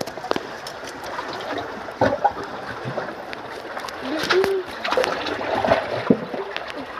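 Sea water washing and splashing among shore rocks in a steady hiss, with a few sharp clicks and knocks scattered through it.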